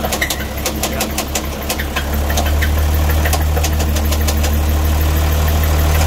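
Isuzu 6BG1T inline-six turbo-diesel running, with a sharp knock repeating several times a second over the engine's steady drone. The engine grows a little louder about two seconds in. The owner takes the knock for a problem with one of the pistons, maybe a cracked piston skirt.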